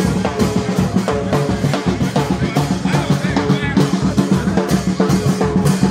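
Music with drums playing a quick, steady beat, loud.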